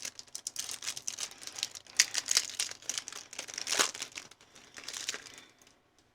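Foil wrapper of a Pokémon Surging Sparks booster pack crinkling as it is torn open and handled, a dense crackle that dies away shortly before the end.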